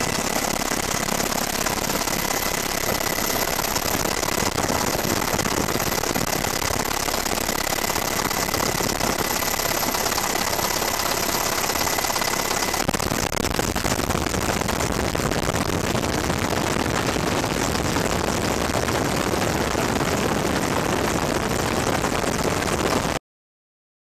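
Steady, loud helicopter noise heard from inside the cabin, with a thin high whine over it. About halfway the whine stops and the low rumble grows stronger. The sound cuts off suddenly about a second before the end.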